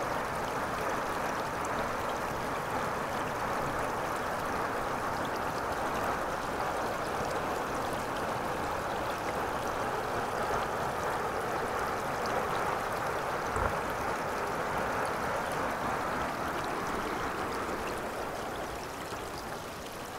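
Creek water rushing over rocks, a steady, even rush that eases slightly near the end. A single short thump about two-thirds of the way through.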